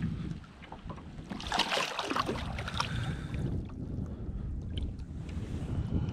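Hooked zander thrashing and splashing at the water's surface beside the boat, loudest about a second and a half in, over a steady low rumble of wind on the microphone.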